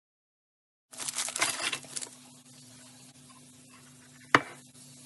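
Kitchen handling noise: about a second of loud crackling and rustling, then a single sharp click or knock near the end, over a faint steady hum.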